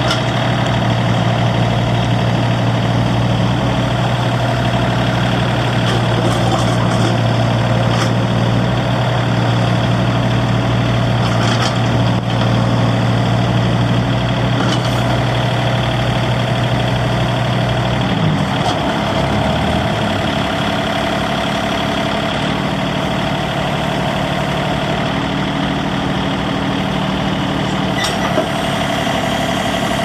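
John Deere 4210 compact tractor's three-cylinder diesel engine running steadily; a little past halfway the engine speed drops over a second or two and it settles into a lower, steady run.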